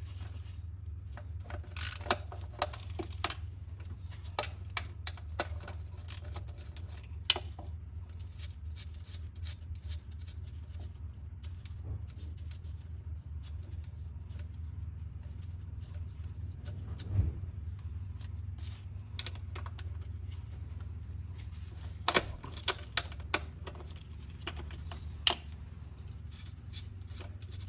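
Socket wrench work on 10 mm bolts: scattered sharp metallic clicks and clinks, in clusters near the start and again near the end, over a steady low hum.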